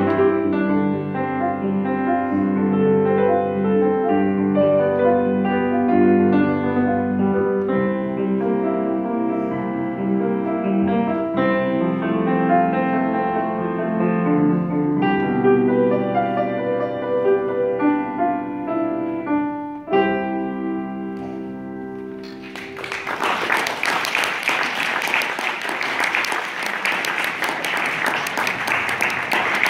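Piano duet on two grand pianos, ending on a held final chord that dies away about twenty seconds in. Audience applause then breaks out and carries on.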